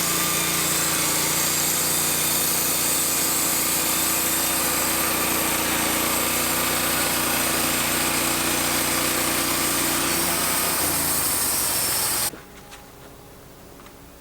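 Wood-Mizer LT15 portable band sawmill running, its engine going steadily while the band blade saws through a pine log. The engine note changes about eleven seconds in, and the sound cuts off suddenly about a second later.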